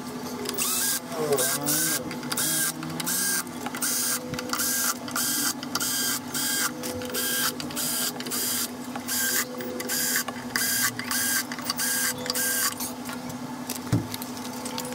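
A workshop machine running with a regular stroke: short scraping bursts about two a second over a steady hum, stopping about two seconds before the end. A single knock follows near the end.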